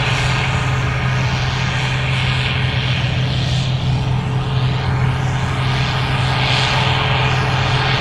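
Gleaner R65 combine running with a loud, steady drone while harvesting corn, with a hiss that swells and fades a few times.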